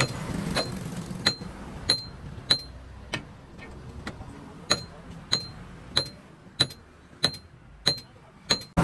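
Hammer blows on metal at a steady pace of about one every two-thirds of a second, each with a short metallic ring, pausing briefly in the middle before carrying on.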